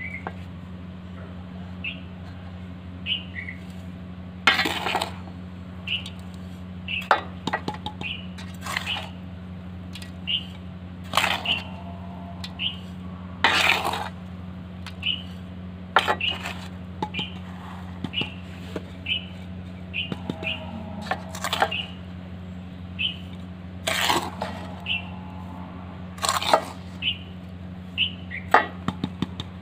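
Metal garden trowel scraping and scooping sandy potting mix out of a metal basin and tipping it into a clay pot, with a sharp scrape or clatter every couple of seconds. A steady low hum runs underneath.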